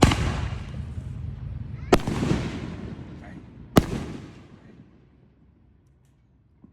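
Fireworks going off: three sharp bangs about two seconds apart, each followed by a fading hiss, dying away by about five seconds in.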